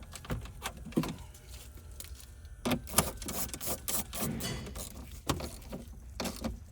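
Irregular metallic clicks, clinks and knocks of a hand tool and the battery ground cable being handled as the cable is refitted to the battery terminal and its nut tightened, with the sharpest knock about three seconds in.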